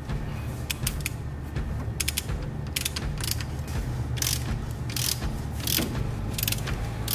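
Hand ratchet with a 17 mm socket clicking in short bursts, roughly one burst a second, as a suspension nut is turned.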